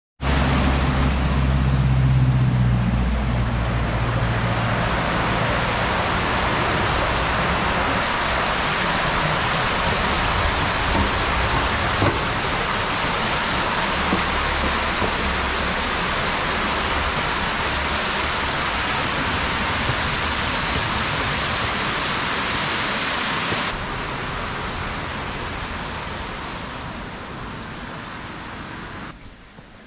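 Loud, steady rushing of water: the sea on a rocky shore and a stream cascading down a stone channel. There is a low rumble in the first few seconds, and it grows quieter over the last few seconds.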